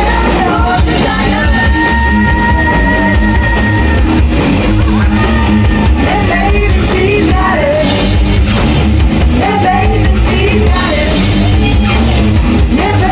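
Live rock band playing a song, with a singer's voice over the band, loud and steady throughout.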